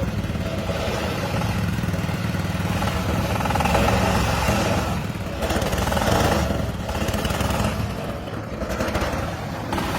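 An engine running steadily, with a low pulsing hum and a noisier sound that swells about four and six seconds in.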